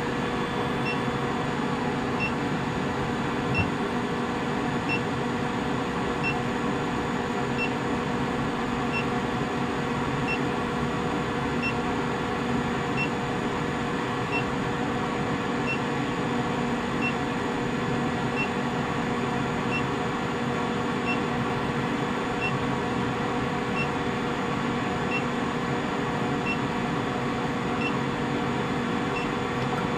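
A 25 kW induction heater working a crucible coil, heating a load of rivets from cold: a steady electrical hum with a faint short beep repeating about every 0.7 seconds. A single knock sounds about three seconds in.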